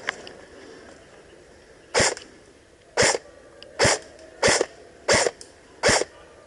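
Cyma M14 EBR airsoft electric rifle firing single shots at a target, six sharp shots starting about two seconds in and coming faster, roughly one every 0.7 s.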